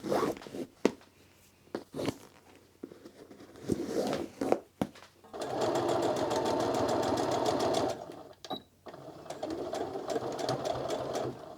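Sewing machine stitching cord into a fabric strip to make piping. First come a few handling clicks and knocks. About five seconds in it runs steadily at a rapid stitch rhythm for a couple of seconds, stops briefly, then runs again more quietly.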